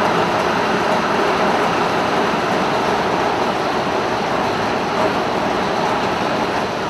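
Tatra T-928-14 air-cooled 11.76-litre V8 diesel of an OT-64 SKOT armoured personnel carrier running steadily at an even speed.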